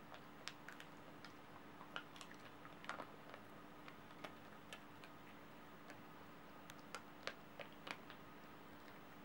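Welsh corgi chewing a piece of jerky: irregular sharp clicks of its teeth working the tough strip, the loudest a little after seven seconds in.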